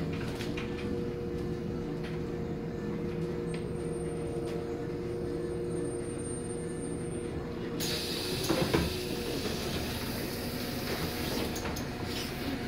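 City bus interior: steady drivetrain hum with a level whine, then a sudden hiss of air about eight seconds in and a loud clunk as the pneumatic passenger door opens at a stop.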